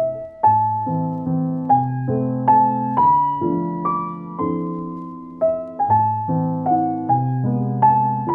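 Slow, gentle solo piano music, with single notes struck about twice a second, each fading away over held low notes.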